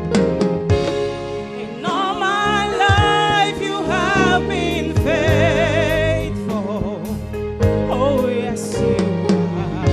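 Music with singing in a gospel style, vocal lines with vibrato over a steady beat and held chords; the singing comes in about two seconds in.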